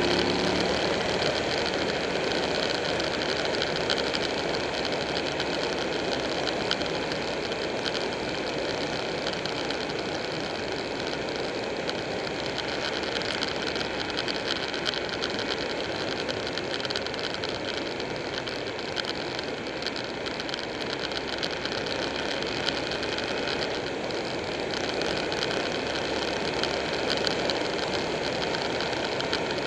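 Buell 1125R motorcycle's liquid-cooled V-twin engine running steadily at cruising speed, mixed with wind and road noise.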